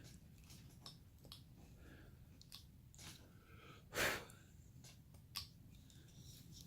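Faint, crisp cutting and scraping of a carving blade slicing small chips from basswood, in scattered short strokes, with a louder cut about four seconds in.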